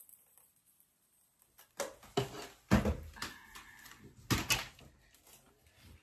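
Handling noise close to the microphone: a few knocks and rustles as things are moved and set down, in a cluster about two to three seconds in and again a little after four seconds.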